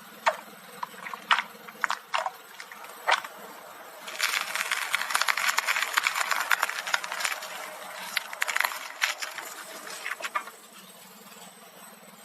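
Slime being squeezed and poked by hand: a few separate sharp pops in the first three seconds, then about six seconds of dense crackling and popping that stops near the end.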